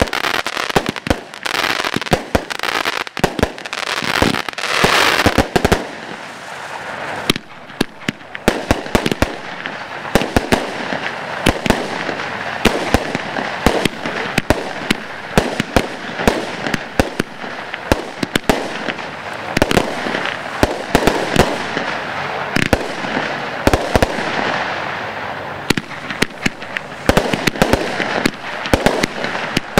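Broekhoff Tornado Superset consumer firework cakes firing a rapid, continuous barrage of shots and bursting stars, with a rushing hiss over the first several seconds.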